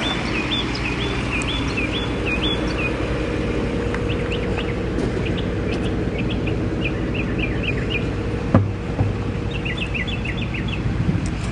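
Small birds chirping in short, quick calls, some in runs and some scattered, over a steady low hum. There is a single knock about eight and a half seconds in.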